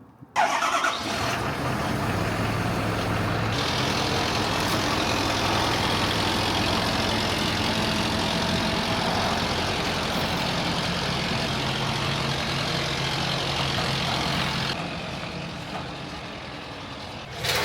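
Ford F-550's 6.7L Power Stroke diesel V8 starting suddenly and then running steadily. It drops to a quieter run near the end.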